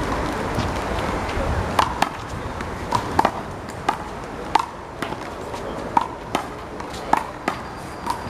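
A one-wall handball rally: a rubber handball is slapped by hand and smacks off the wall and the court. About a dozen sharp, irregularly spaced smacks start a couple of seconds in, some in quick pairs, over outdoor background noise.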